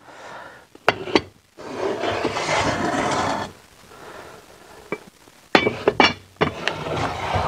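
Heavy cast iron pots knocking down onto the masonry floor of a wood-fired oven and being slid across it with a long grating scrape. A second set of clunks and a second scrape come about two thirds of the way in, as the next pot goes in.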